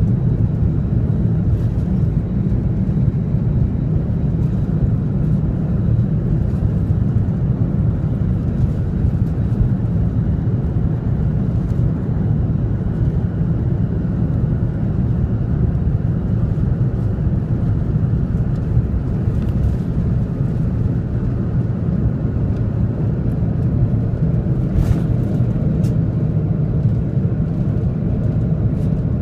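Airbus A330 jet engines running steadily at takeoff thrust, with the deep rumble of the takeoff roll, heard from inside the passenger cabin.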